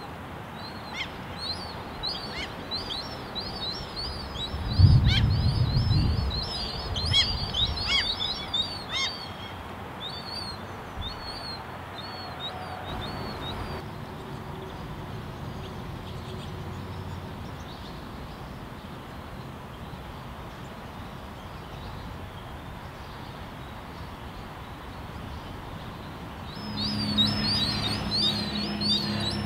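Juvenile common gulls giving rapid, high-pitched begging peeps in quick series, dying away about halfway through and starting up again near the end. A brief low rumble about five seconds in is the loudest sound, and a low steady hum comes in near the end.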